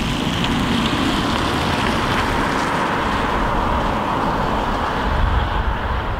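Car sound effect: a steady rushing noise of a vehicle at speed, with no clear engine note.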